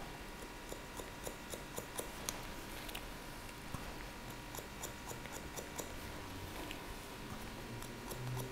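Faint, irregular snips of barber's scissors point-cutting into wet hair on the top of the head, a few small clicks a second.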